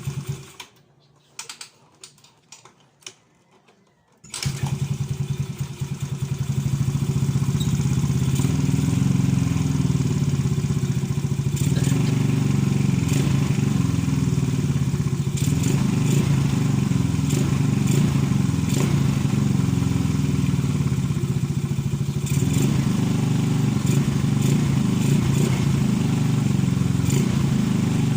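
Yamaha Mio Sporty scooter's single-cylinder engine goes quiet just after the start, leaving a few seconds with only faint clicks. It starts again about four seconds in and keeps running, its speed rising and falling again and again. The engine is hard to start because its valves are sunken and leaking.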